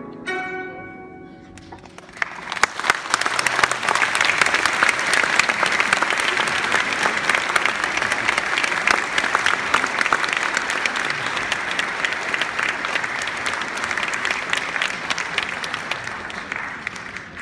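A guzheng's final plucked note rings out and decays, then the audience applauds, starting about two seconds in and slowly fading near the end.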